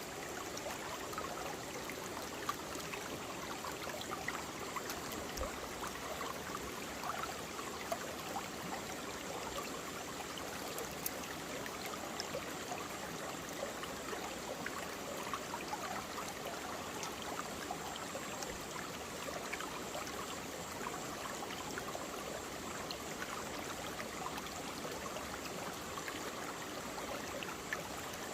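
Mountain valley stream flowing over rocks: a steady rush of water, flecked with small splashes and droplet ticks.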